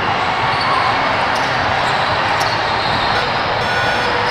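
Steady, echoing din of a large basketball hall: balls bouncing on the courts, shoes on the floor and distant voices, with two brief sharp ticks about one and a half and two and a half seconds in.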